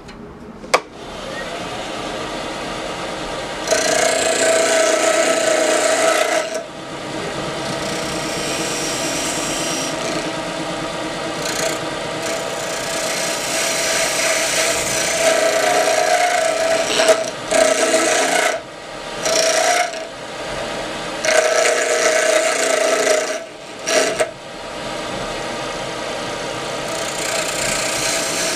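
Wood lathe spinning an ambrosia maple ring blank on a mandrel while a parting tool cuts into it: a sharp click about a second in, then the lathe runs steadily, broken by several bouts of harsh scraping with a ringing tone as the tool bites into the wood.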